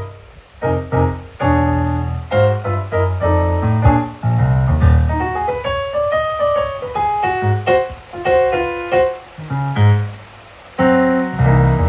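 Keyboard playing gospel piano chords over a bass line, an instrumental run at the end of the song.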